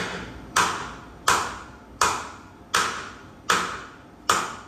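Repeated hammer blows on metal, evenly paced at about one every three-quarters of a second. Each strike rings briefly before the next.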